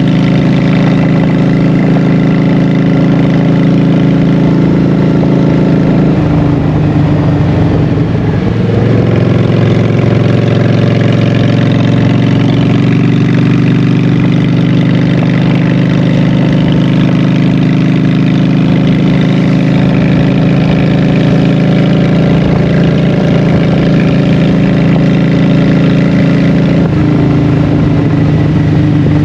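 Honda Shadow 750's V-twin engine running through Vance & Hines Short Shots exhaust pipes while riding. The engine note steps down about six seconds in, dips and climbs again a couple of seconds later, then holds steady until it shifts once more near the end.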